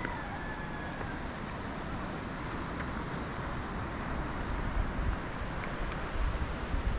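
Steady outdoor rumble and hiss with no distinct events, swelling and growing more uneven near the end.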